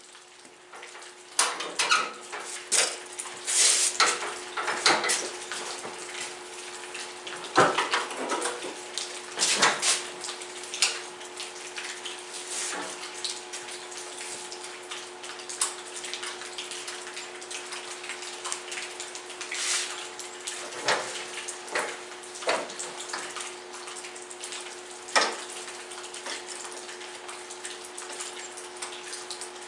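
Scattered metallic clinks and taps of hand tools and parts being handled on a Simplicity garden tractor's frame under the raised seat, some sharper knocks among them, over a faint steady hum.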